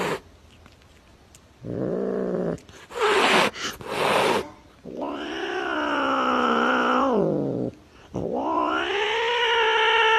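Recorded cat sounds played back: a short low yowl, a few hisses, then two long drawn-out caterwauling yowls.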